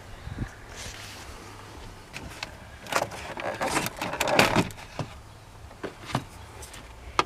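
Plastic dashboard trim and its retaining clips being handled and set aside: scattered clicks, knocks and scrapes, the louder ones about three, four and a half and six seconds in, over a faint steady low hum.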